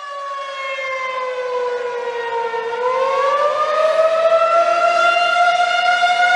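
Outdoor warning siren sounding. Its pitch sinks slowly for almost three seconds, then rises and holds steady as the sound grows louder.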